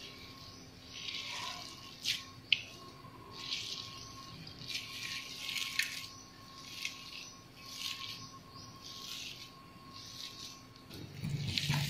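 A hand mashing crumbly chhena (fresh cheese curds) against a stainless steel plate: repeated soft scraping and rubbing strokes, about one a second, with two sharp clicks on the metal about two seconds in.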